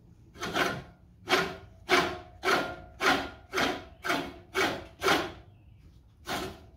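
The reel blades of a Silent Scott's Deluxe push reel mower are being turned by hand and scrape across the bedknife through gritty lapping compound during backlapping. There is a rasping swish with each blade pass, about two a second, with a brief pause near the end.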